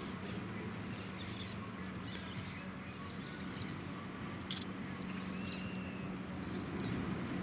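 Steady outdoor rushing noise with many short, high bird chirps and calls scattered through it.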